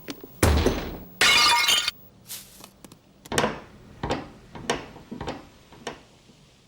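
Cartoon sound effects: a heavy thud, then glass shattering for under a second, followed by a run of lighter knocks that fade away.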